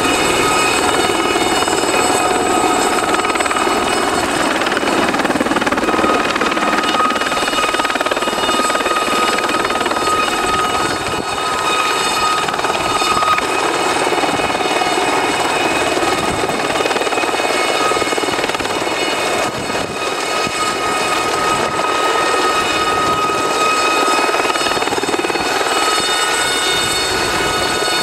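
Aérospatiale Gazelle helicopter hovering and manoeuvring low. Its Astazou turboshaft and rotors make a steady loud din, with several high whining tones held over it.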